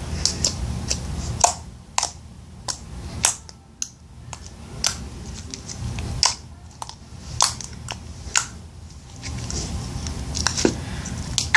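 Glossy glue slime being squeezed and stretched by hand, making irregular sticky clicks and pops, a dozen or so.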